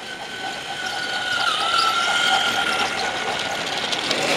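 Battery-powered Trackmaster toy train's motor and plastic gears whining as it runs along plastic track, growing louder as it approaches and passes close by.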